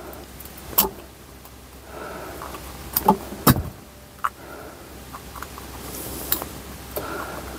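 A handful of sharp clicks and knocks, one of them louder a little past the middle, from hands moving wire connectors from an old foot-operated dimmer switch onto the new one.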